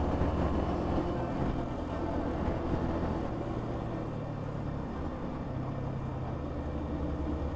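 A Yamaha XSR155's single-cylinder engine running steadily while the motorcycle is ridden, with road noise.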